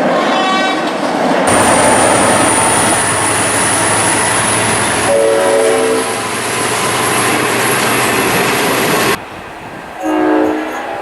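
Train horns sounding three times: one ending about a second and a half in, another about five seconds in, and a short blast near the end. In between, a train runs past with a steady high-pitched whine, and the sound changes abruptly twice.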